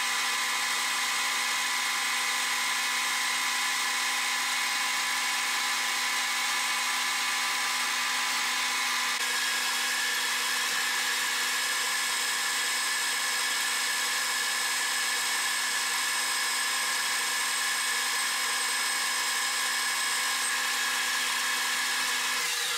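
Metal-turning lathe running with a steady whine of several fixed tones as a boring bar bores out an aluminium part. Right at the end the pitch starts to fall as the spindle slows.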